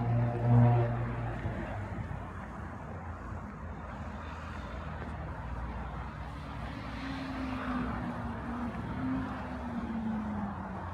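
Road traffic: a continuous hum of passing vehicles. A loud engine tone goes by in the first second or so, and another vehicle's engine hum falls slowly in pitch near the end as it passes.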